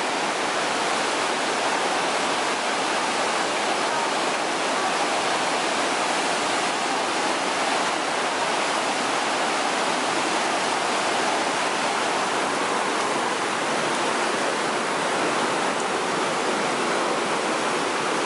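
Niagara River whitewater rapids rushing past close by: a loud, steady wash of churning water.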